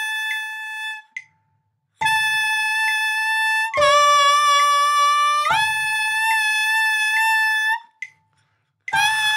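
Alto saxophone mouthpiece with reed, played without the horn: a loud, held concert A that is lipped down to a lower note for about two seconds and back up to the A. The phrases are separated by short rests.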